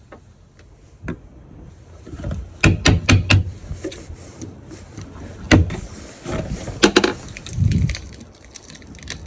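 Sharp knocks and cracks as the deck manhole cover of a Yamaha W24EFR fibreglass Japanese-style boat is worked loose: a quick run of four knocks about three seconds in, single knocks later, and a duller thud near the end.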